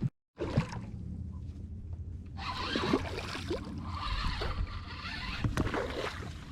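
Boat motor running steadily with a low hum, and a rushing hiss that rises about two and a half seconds in and fades near the end. The sound cuts out completely for a moment just after the start.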